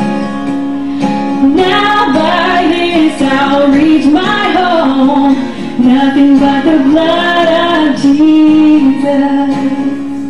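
A woman singing into a microphone over guitar accompaniment; her voice comes in about a second and a half in and drops out near the end, leaving the guitar.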